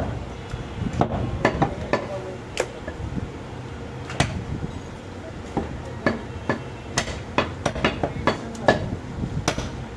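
Heavy cleaver chopping goat meat on a wooden log chopping block: sharp, irregular chops that come faster in the second half, two or three a second.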